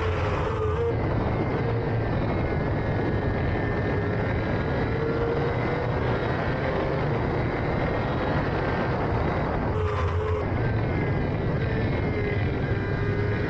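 Racing sidecar outfit's engine running hard at high revs under steady engine noise. The pitch wavers, and there are short breaks about half a second in and again about ten seconds in.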